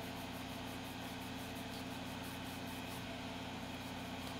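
A cloth scrubbing back and forth over a circuit board in quick strokes, about five a second, stopping about three seconds in, over a steady low hum from bench equipment.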